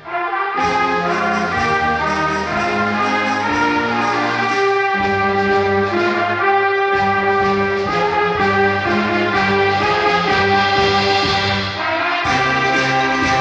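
High school concert band playing, with trumpets and trombones carrying sustained chords over the ensemble. After a brief break at the very start, the full band comes in about half a second in.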